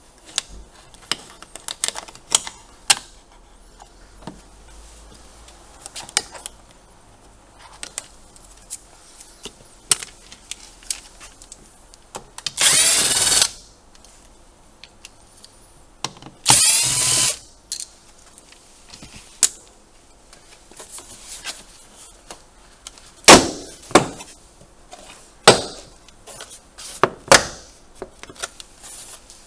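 Cordless power screwdriver spinning in two bursts of about a second each, its pitch sliding as the speed changes, backing out the door trim screws of a Mazda 3. Short clicks and taps from handling the door trim run throughout, with several sharp snaps near the end.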